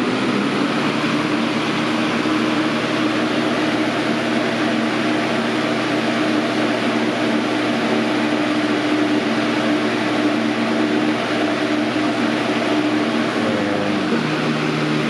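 Galaxy box fan (model 4733) running steadily on its high speed setting: a loud, even rush of air over a low motor hum.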